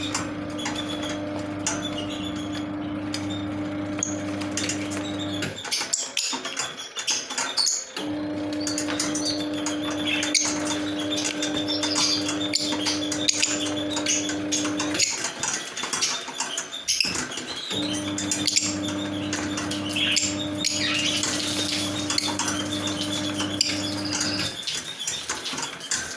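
Lovebirds chattering with many quick high chirps and clicks throughout. A steady low mechanical hum runs underneath, cutting out twice for a couple of seconds and starting again.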